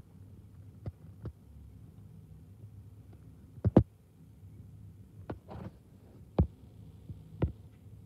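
Sharp taps and clicks of a small bird's beak pecking sunflower seeds in a clear window-mounted feeder, scattered irregularly over a low steady hum; the loudest is a quick double tap near the middle.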